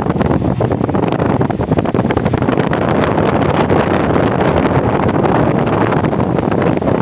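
Wind rushing and buffeting the microphone at a moving car's side window, over a steady low road rumble.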